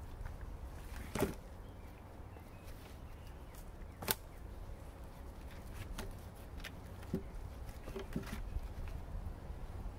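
A few scattered knocks and scuffs from hands working dirt and logs at the wall of a dug-out shelter, the sharpest about a second in and about four seconds in, over a low steady rumble.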